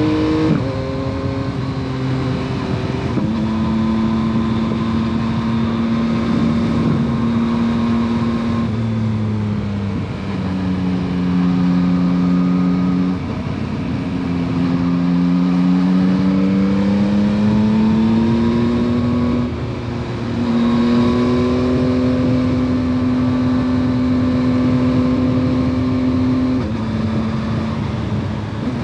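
Yamaha MT-09 SP's 890 cc three-cylinder engine through its stock exhaust, pulling the bike along on the road. The revs hold steady for stretches, drop sharply several times and climb slowly in between.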